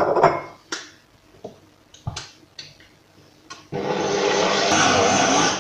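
A few knocks and clicks, then an electric stand mixer switched on about two-thirds of the way in, its motor running steadily with the beater churning sticky yeast dough for Easter bread, cut off suddenly near the end.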